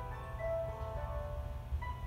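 Station departure melody: a chime tune of bell-like notes over a low steady hum, signalling that the train doors are about to close.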